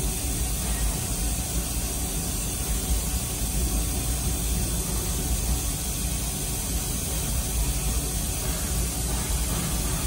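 Steady hiss with a low rumble underneath, unchanging throughout: the running noise of shop machinery.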